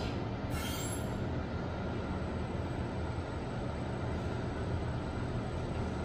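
Schindler 5000 machine-room-less passenger lift car travelling in its shaft: a steady low rumble of the ride, with a brief hiss about half a second in and a thin high-pitched whine from about a second on.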